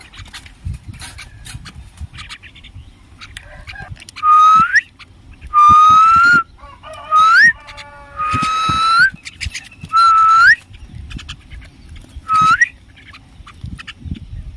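Common myna (salik) giving loud whistled calls, about six of them from about four seconds in, each a held note that sweeps sharply upward at its end, with a quick run of short stepped notes near the middle.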